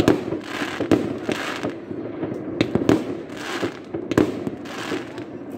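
Aerial fireworks going off: repeated sharp bangs at uneven intervals, with crackling between the bursts.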